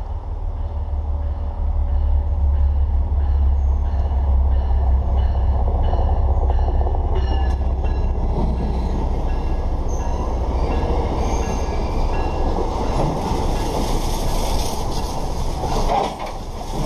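An MBTA commuter train led by an MPI HSP46 diesel locomotive approaches and passes at speed. A deep engine drone builds over the first two seconds, then the rush and rhythmic wheel clatter of bilevel coaches going by. A high hiss grows in the later seconds, from coaches that had bad brakes and were smoking.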